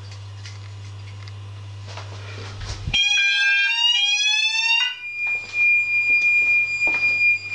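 Fire alarm sounder going off after a smoke detector is given a short burst of aerosol test smoke during a system test. It starts about three seconds in with two rising sweeping tones, then settles into a loud, steady high-pitched tone. A low steady hum comes before it.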